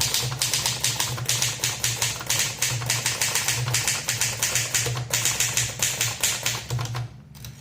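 1960 Adler Primus manual typewriter being typed on in a quick, continuous run of keystrokes, its typebars striking a hard platen; the typing stops about seven seconds in.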